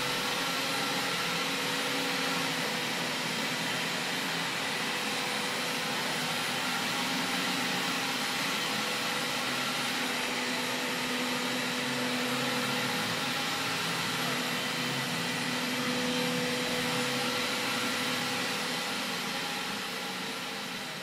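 Robot vacuum cleaner running: a steady suction-fan rush with a low hum and a faint whine. It fades out near the end.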